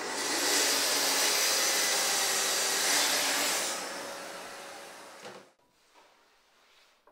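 Festool plunge-cut circular saw running on its guide rail as it cuts through a wooden shelf panel. After about three and a half seconds the motor is let off and the blade winds down, dying away about five and a half seconds in.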